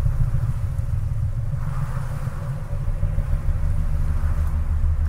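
A loud, steady low rumble, with a faint hiss rising around two seconds in.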